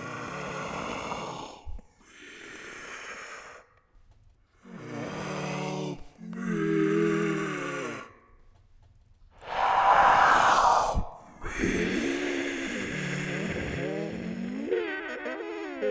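Ghost-voice sound effect: a voice processed to sound eerie, whispering and moaning "help me" in about six drawn-out phrases divided by short pauses, one of them a loud breathy whisper.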